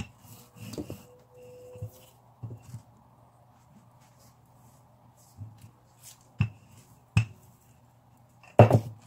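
Scattered light knocks and clicks of kitchen handling: a wooden rolling pin on bulgur dough and the counter at first, then a few sharp clicks, the loudest near the end. A faint steady low hum lies underneath.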